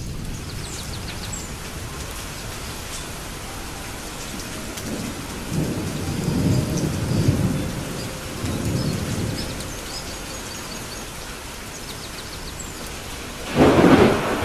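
Steady rain falling through a thunderstorm. A low roll of thunder swells from about five seconds in and fades over several seconds, then a sharper, louder thunderclap breaks near the end.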